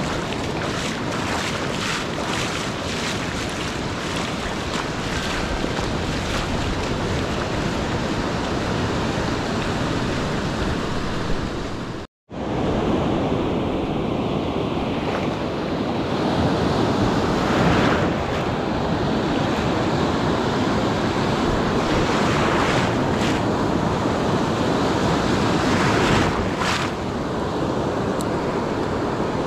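Ocean surf washing onto a beach, with wind buffeting the microphone. The sound cuts out for an instant about twelve seconds in. Later, a couple of louder waves swell up and break.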